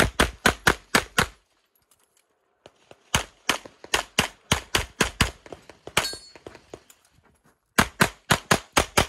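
Tanfoglio competition pistol firing fast strings of shots, about four to five a second, in three bursts: one at the start, one in the middle and one near the end, with short quiet pauses between them.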